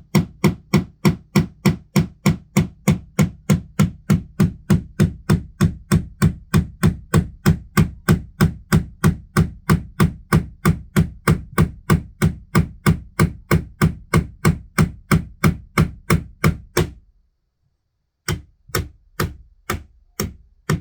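Hammer driving a nail into a wall: steady, dull blows at about three a second for some seventeen seconds, a short pause, then a few more blows. The nail balks for a while and then goes in.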